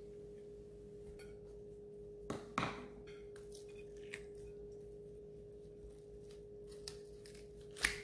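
Kitchen scissors cutting through cooked chicken leg, skin and bone: a couple of crunching snips about two and a half seconds in, faint clicks between, and another snip near the end, over a steady low hum.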